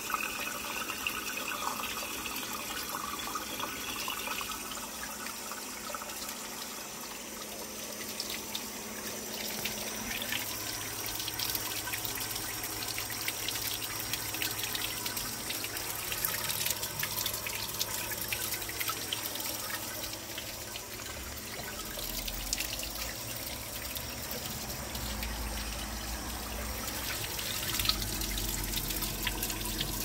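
Kohler Embrook 1.28-gallon-per-flush toilet refilling after a flush: water runs steadily into the tank and bowl, with a faint wavering tone from the fill valve.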